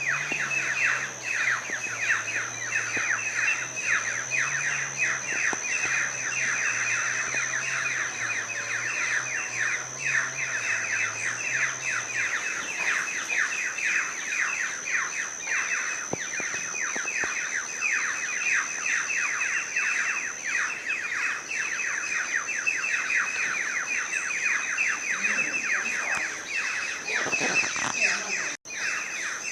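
A dense chorus of small birds chirping rapidly and without pause, over a steady high thin tone.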